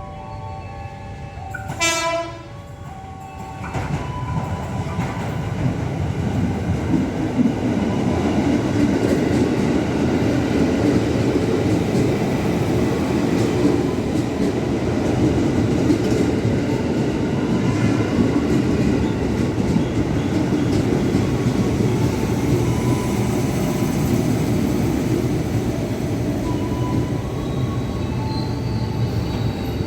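Electric commuter train, a JR East 205 series EMU, sounding a short horn blast about two seconds in, then running past with a steady, loud rumble of wheels on rails.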